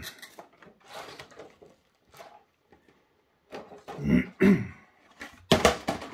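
Handling noise: a cotton sweater sleeve rubbing and brushing against the camera's microphone, with a few soft knocks as the camera is moved. There are two low thumps about four seconds in, followed by a louder rustle near the end.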